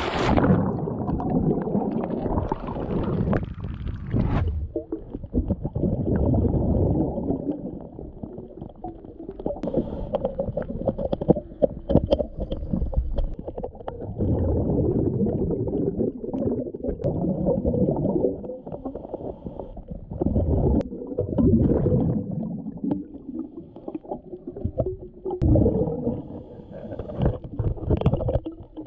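A splash at the start as the diver goes under, then muffled underwater sound: a scuba diver breathing through the regulator, with a gurgling rush of exhaled bubbles every three to four seconds.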